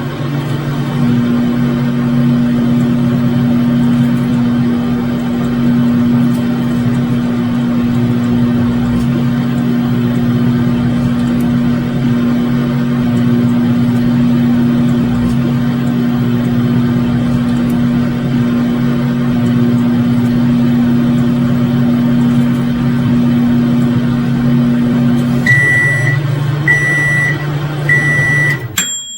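Microwave oven running with a steady electrical hum. About 25 seconds in, part of the hum drops out while the fan keeps running, and three short high-pitched end-of-cycle beeps sound about a second apart. A sharp click with a brief ring comes at the very end.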